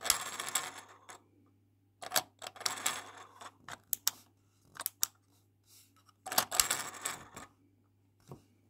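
Small plastic toy slot machine being played: three rattling, clicking runs as its reels are set spinning, with single sharp clicks in between as its small stop buttons are pressed.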